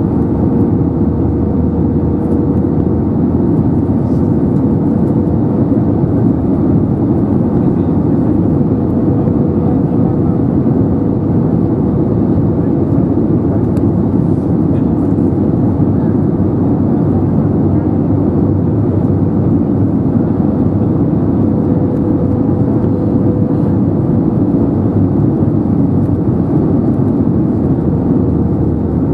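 Steady cabin noise inside an Airbus A320neo over the wing during descent: a deep, even rush of airflow and Pratt & Whitney geared-turbofan engine drone. A faint steady whine rides on top and fades in and out.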